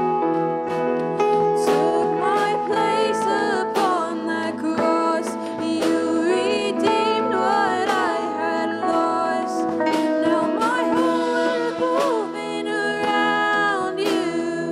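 Live worship band playing a song, with sung melody over sustained chords and a steady beat.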